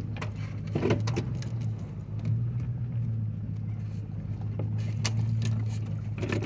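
A vehicle's engine and road noise heard from inside the cabin while it rolls slowly over a dirt lot, a steady low hum. Short clatters or knocks cut through it, one about a second in and another near the end.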